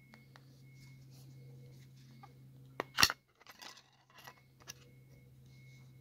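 Plastic battery cover of a Dreambox RC20 remote control being opened: one sharp snap about three seconds in, followed by a few lighter clicks and scrapes of plastic.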